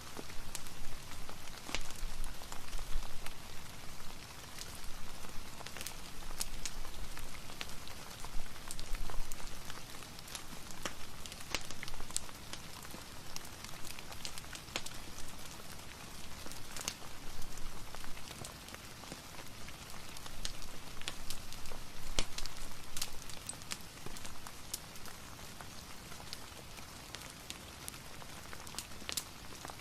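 Steady rain hiss and patter, mixed with fireplace crackling, with sharp crackles and drips scattered throughout.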